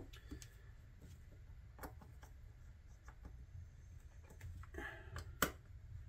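A few short, faint clicks of a small screwdriver slipping and camming out of the tiny screws on an M.2 NVMe SSD heatsink as they are tightened, the sharpest about five and a half seconds in. The slipping comes from a poor-fitting screwdriver.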